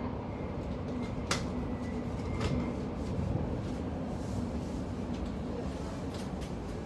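Steady low rumble of a passenger train carriage running, with a faint hum. A sharp click about a second in and a lighter knock a second later.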